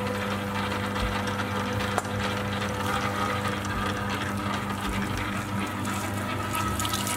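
Electric meat mincer running steadily with a constant motor hum as it grinds beef offcuts through its freshly sharpened blade and grind plate. A single sharp click about two seconds in.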